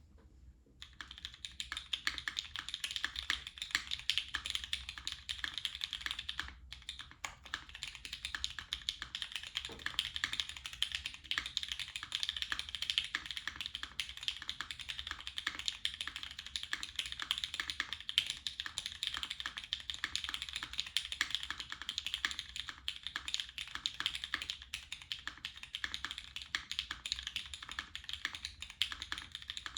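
Fast, continuous typing on a custom mechanical keyboard with lubed Cherry MX Brown Hyperglide tactile switches, a polycarbonate plate, GMK keycaps and an O-ring mount, giving a dense run of keystroke clacks. It starts about a second in and pauses briefly once.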